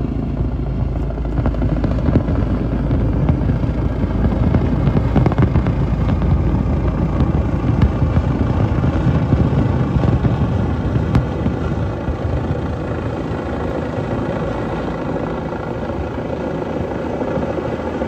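Steady low engine rumble amid city street noise.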